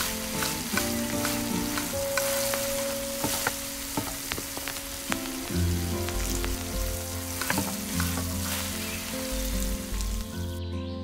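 Food frying in hot oil in a miniature pan: a steady sizzle with scattered sharp crackles and pops. The sizzle cuts off abruptly just before the end.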